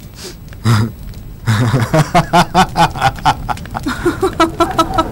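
People's voices in quick, rhythmic syllables, starting about a second and a half in.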